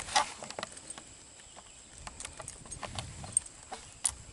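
A scattered series of light clicks and knocks, the sharpest just after the start and two more near the end, like gear or a rifle being handled.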